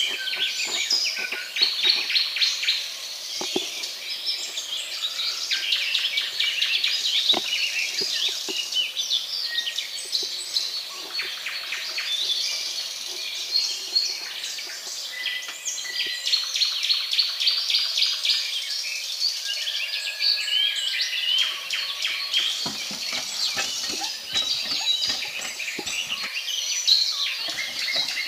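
Many small birds chirping and twittering, a dense continuous chorus of short high calls.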